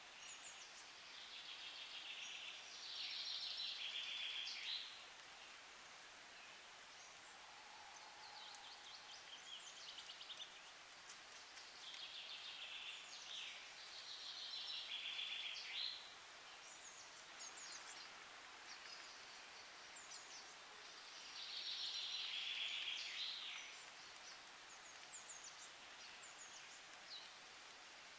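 A songbird sings a short phrase of two to three seconds, three times about ten seconds apart, with scattered faint chirps from other birds between the phrases, over a steady outdoor hiss.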